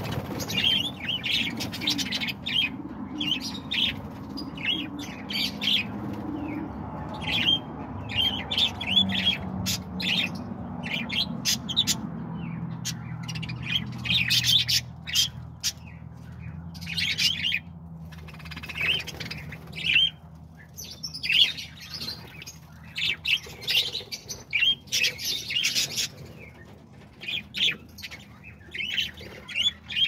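A flock of budgerigars chirping and chattering, many short high calls overlapping throughout. A low hum sits beneath the calls during the first half.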